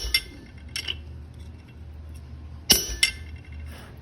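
Hammer blows on a steel punch driving eye holes into hot steel over the anvil, each strike with a bright metallic ring. One loud blow lands at the start and another about two and a half seconds in, each followed closely by a lighter one, with faint clinks of metal between.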